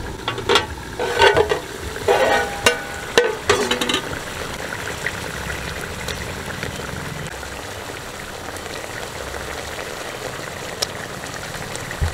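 Tilapia masala curry simmering in a pan with a steady sizzle. In the first few seconds there are several sharp knocks and clinks of metal pan and utensils, some briefly ringing, as the chopped tomato is added.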